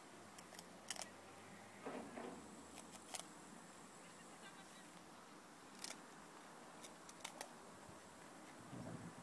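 Near silence, broken by a handful of sharp, scattered clicks and two brief soft rustles.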